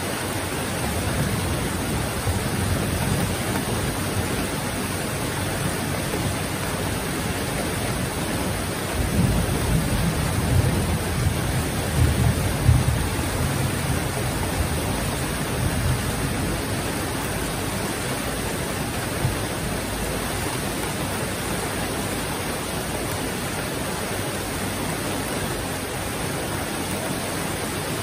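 Heavy rain falling in a steady, dense hiss. A low rumble of thunder swells and fades about a third of the way in.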